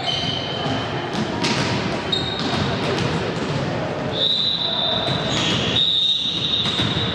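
Voices and chatter echoing in a sports hall between volleyball rallies, with a ball thudding on the wooden floor a few times. About four seconds in, a long steady high tone starts, breaks briefly, and sounds again near the end.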